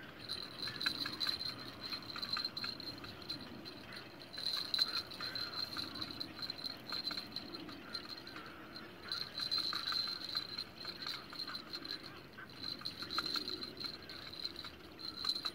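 Night insects chirring: a steady high trill that swells and fades every few seconds, over a lower, busier layer of short chirps.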